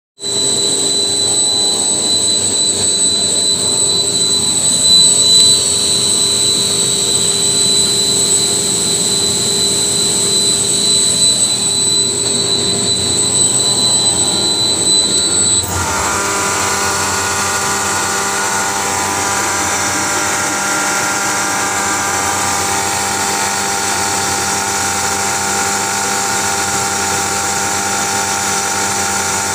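Screw air compressor running with a steady high-pitched whine over a mechanical hum. About two-thirds of the way through, the sound changes abruptly: the high whine stops and a lower cluster of steady whining tones takes over.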